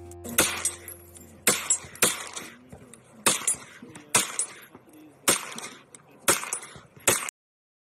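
Gunshots from an AR-style pistol-caliber carbine: eight single shots, each sharp crack followed by a short echo, fired at an uneven pace about a second apart. The sound cuts off suddenly after the last shot.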